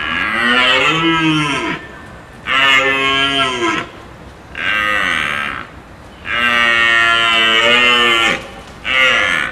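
A deer calling: a series of five drawn-out calls with short gaps between them, each rising and then falling in pitch. The fourth call, a little past the middle, is the longest, and the last is cut short at the end.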